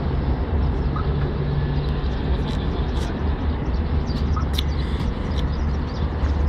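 Volkswagen T3 bus engine running as the van rolls slowly at low speed: a steady low rumble, with a low hum in the first couple of seconds.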